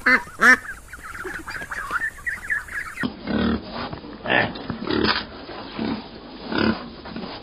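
A chorus of rapid, high squeaky calls from young animals for about three seconds, then, after a cut, a pig grunting repeatedly in short bursts.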